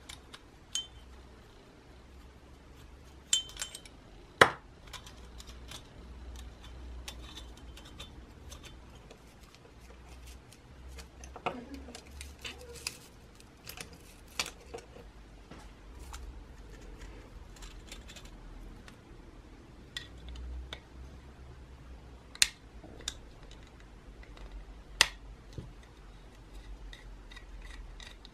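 Scattered metallic clinks and light taps of a screwdriver and small metal parts as an antique electric iron's terminal screws are worked loose, with a few sharper knocks, the loudest about four seconds in and two more near the end.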